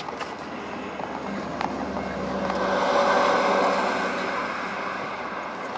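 A car moving slowly, heard from inside the cabin: engine and tyre noise swell to a peak about halfway through, then ease off.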